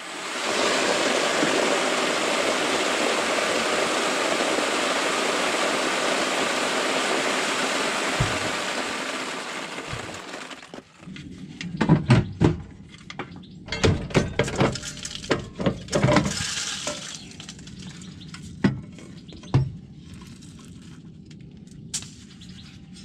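Sunflower seeds pouring in a steady rush out of the trapdoor under a Monosem precision seeder's metering unit into a sack, tailing off about ten seconds in. Then a run of clicks and knocks as the metering unit's cover is unlatched and taken off.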